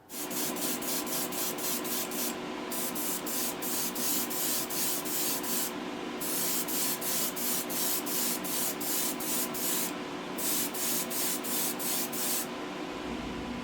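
Airbrush spraying heavy gold-flake paint in rapid short pulses of hiss, about three or four a second, with a few brief pauses. It stops shortly before the end.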